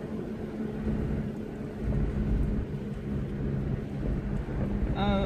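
Inside the cabin of a Lexus LX450 (Land Cruiser 80 series), its 4.5-litre straight-six running with a steady drone while it drives slowly over a rough dirt road, with an uneven low rumble from the road. A voice starts briefly near the end.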